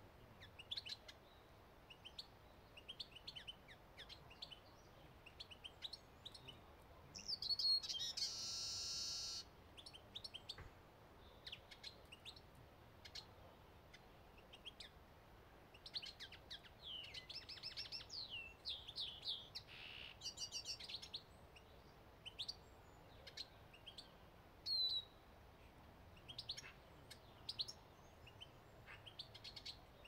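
Small finches chirping and twittering in short, high calls, with a loud, harsh buzz of about a second and a half about eight seconds in and a quicker run of calls later on.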